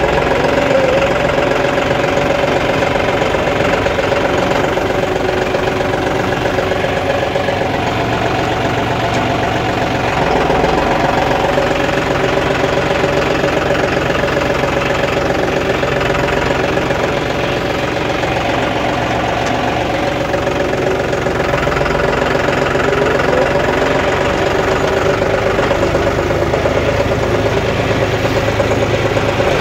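John Deere 5310 tractor's three-cylinder diesel engine running steadily at low revs, heard from the driver's seat.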